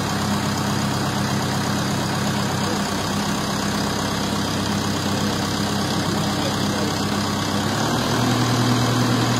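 Deutz-Fahr tractor's diesel engine running steadily. About eight seconds in, the engine speed steps up and it gets a little louder as the front loader arms lift the bucket.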